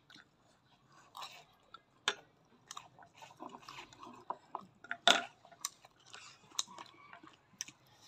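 Close-up chewing of a mouthful of instant noodles, with irregular short clicks and mouth noises, the loudest about five seconds in.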